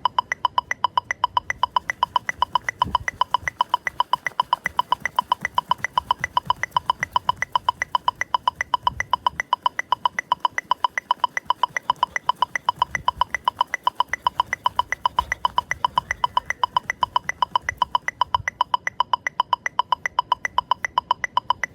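Metronome-style click track: a fast, perfectly even train of short, bright pitched clicks that stops abruptly near the end.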